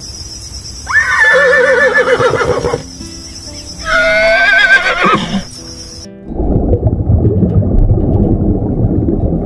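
A horse whinnying twice, each a wavering, high neigh lasting a second or two, over background music. About six seconds in, a steady low rushing noise takes over.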